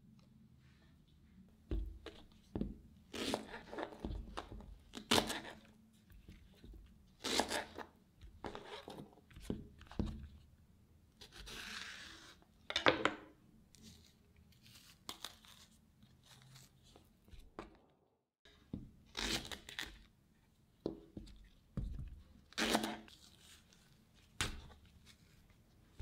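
Banana peels being pulled apart and torn open by hand in a series of short tearing strips, one of them longer. There are a few short knocks of fruit or a knife on a plastic cutting board.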